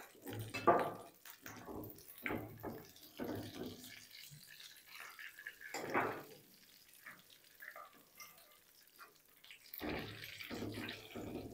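Potato cheese balls deep-frying in a wok of oil over a low flame: a gentle bubbling sizzle. A wire-mesh skimmer lifts the balls out, with irregular splashes and clatters as oil drips back into the pan.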